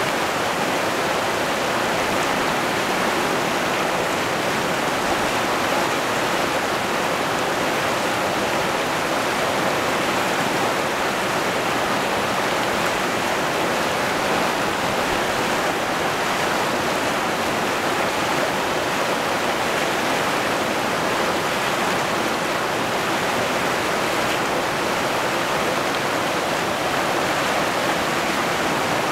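A fast, muddy river running over rapids and boulders, a steady unbroken rush of whitewater.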